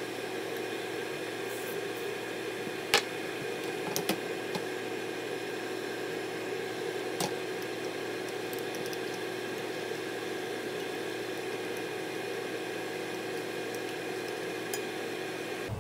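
Beaten egg with asparagus and mushrooms frying in a nonstick wok on a gas hob: a steady, gentle sizzle under a faint steady hum. A few sharp clicks of chopsticks against the pan are heard, the loudest about three seconds in.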